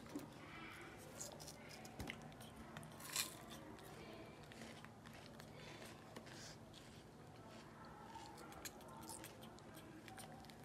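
Near silence in a small room, broken only by faint clicks and soft rustles of eating with forks, and one brief louder rustle about three seconds in.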